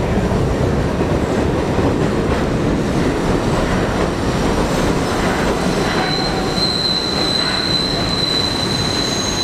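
Vintage NYC subway train of R17, R33 and R36 cars running on elevated steel track with a steady rumble and clatter; from about six seconds in, a high steady wheel squeal sets in as the cars take a sharp curve.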